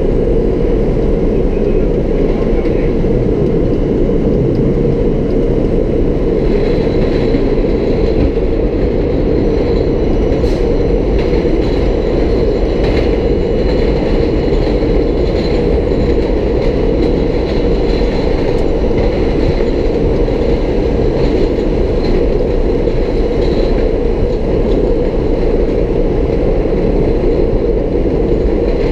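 R32 subway car running at speed on the A line: a steady rumble of wheels on rail with clicking over rail joints. A faint high tone joins about six seconds in.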